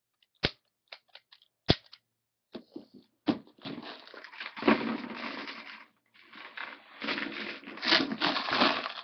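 A few sharp plastic clicks, then a long stretch of dense, irregular clattering from a plastic toy being handled.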